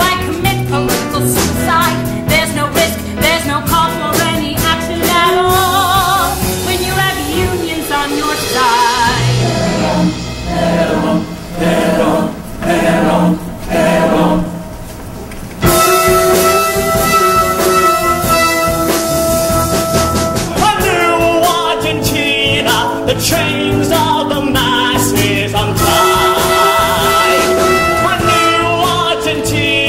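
Musical-theatre singing with instrumental accompaniment in a live stage performance: sung lines with vibrato, a quieter, thinner passage about a third of the way through, then long held notes over a steady accompaniment.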